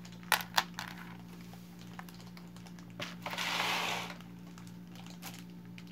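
Glass bead bracelet clicking as it is handled and set down on a capiz shell placemat: two sharp clicks near the start and a few lighter taps. About three seconds in comes a brief brushing rustle of hands over the mat. A steady low hum runs underneath.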